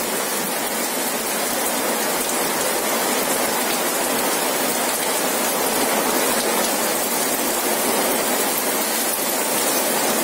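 Rain pouring steadily, an even, unbroken wash of noise.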